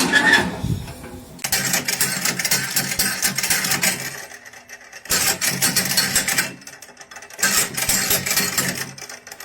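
Electric welding arc crackling and sizzling in three bursts of one and a half to two and a half seconds each, with short pauses between, over a faint low hum.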